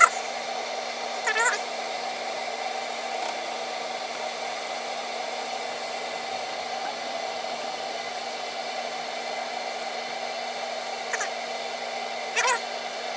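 Water in a stainless keg kettle heating on a 5500 W electric element just short of the boil, at about 190°F: a steady rushing hiss of bubbles forming and collapsing on the element. A few short pitched chirps come about a second in and again near the end.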